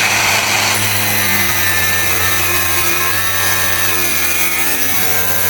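Electric grinder running steadily, its disc grinding against a carborundum (emery) sample: a continuous grinding hiss over a low motor hum.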